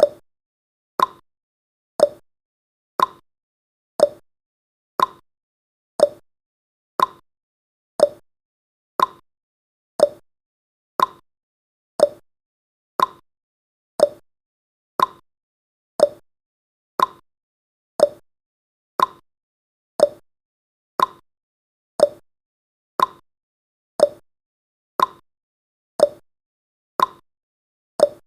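Countdown timer's clock-tick sound effect: short, sharp ticks, one each second, with silence between.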